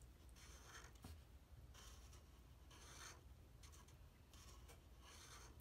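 Faint scratching of a Sakura Pen-touch paint marker's tip drawn across stained wood, in a series of short strokes as the letters are thickened.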